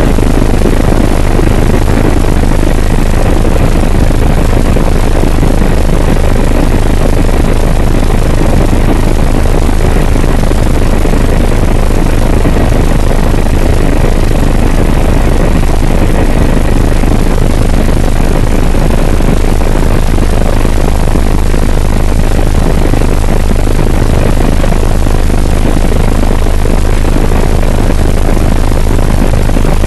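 Helicopter in flight heard from inside the cabin: a loud, steady drone of rotor and turbine with a low hum underneath and a faint steady whine.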